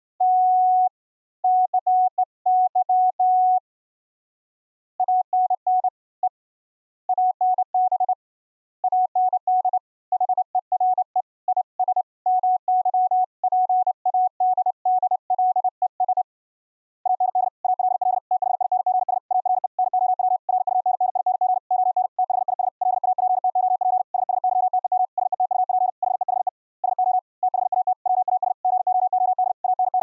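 High-speed Morse code: a single audio tone of about 700 Hz keyed rapidly on and off in dots and dashes, with short pauses near 4 and 16 seconds in and denser, nearly unbroken sending from about 17 seconds on.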